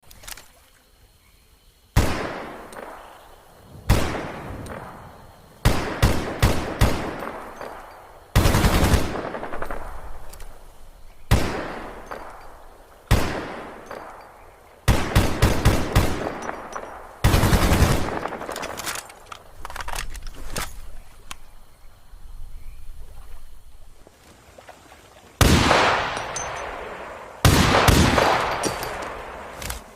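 AK-47 assault rifle firing, alternating single shots and short automatic bursts every couple of seconds, each ending in a long echoing decay.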